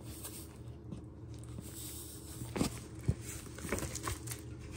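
Caster sugar tipped from its paper bag into a glass bowl on kitchen scales: a soft pouring hiss and paper-bag crinkling, with a few light clicks and taps in the second half over a low steady hum.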